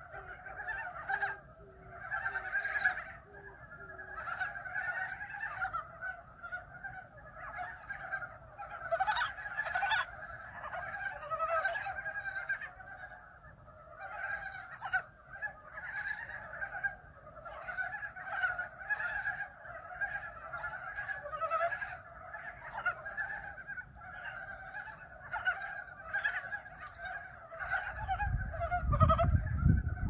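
A chorus of many frogs calling together in a shallow ditch: a dense, continuous mass of quick, clucking croaks that overlap without a break. A pigeon coos low and evenly in the first few seconds, and a low rumble near the end is the loudest sound.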